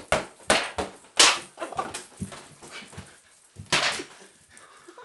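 Flurry of whacks and slaps from a mock fight, a big red glove and a handheld kitchen strainer swung at each other, several hits a second at uneven spacing. The hardest hits land about a second in and just before four seconds, with a quieter, scuffling stretch between.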